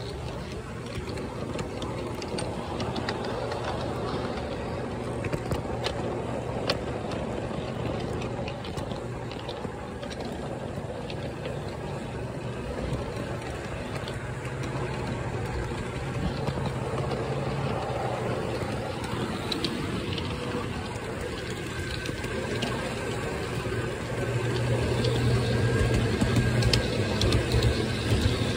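Garden-scale model diesel locomotive, Burlington Northern 913, running along its outdoor track, heard from on board: a steady low drone from its drive with scattered clicks, growing louder near the end.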